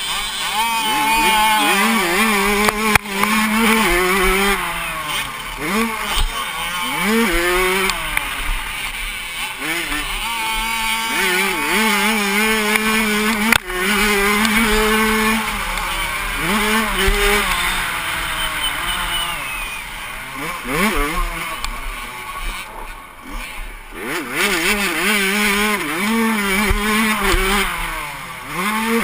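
Suzuki RM85 85cc two-stroke motocross engine racing, its pitch repeatedly climbing hard then dropping as it shifts gears and the throttle comes off, with wind rushing over a helmet-mounted microphone. A sharp knock comes about three seconds in and another near the middle.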